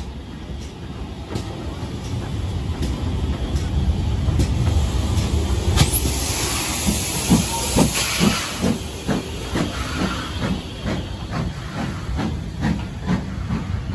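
Steam locomotive: a low rumble builds, a loud hiss of steam starts about six seconds in, then regular exhaust chuffs at about two a second.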